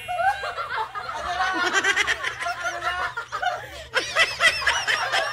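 Several people snickering and laughing together, the laughter growing louder about four seconds in.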